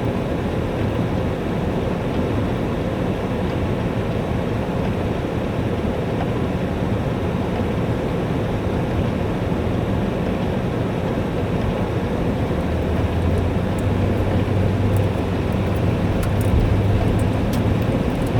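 Heavy rain pouring down in a steady, dense rush, with a low hum building in the last few seconds and a few sharp ticks near the end.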